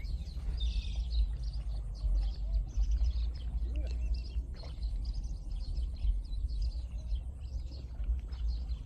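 Wind rumbling on the microphone, with small birds chirping on and off; one clearer bird call comes about half a second in.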